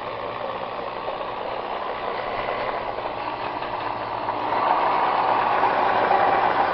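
Nissan FS5W71B five-speed manual transmission spinning in neutral on a test rig, with a steady mechanical whir that grows louder about four and a half seconds in. It runs smoothly, without the warbling, bumping noise of the faulty unit.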